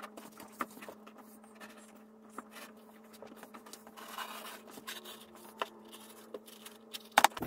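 Wooden strap cutter drawn along a leather side, sped up: faint scraping and scattered light clicks over a steady low hum, with a quick cluster of sharper clicks near the end.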